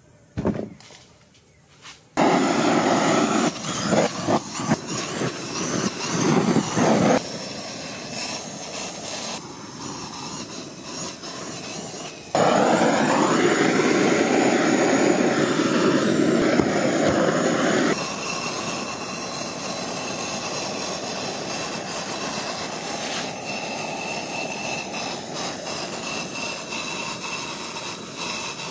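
Handheld gas blowtorch burning with a steady, loud hissing flame as it singes a cow's head. It starts about two seconds in and shifts in loudness abruptly a few times.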